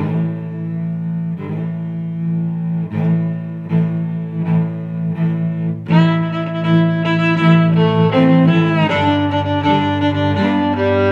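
Slow bowed-string music, cello-led: low notes restruck in a steady pulse, with higher strings joining about six seconds in to carry a melody.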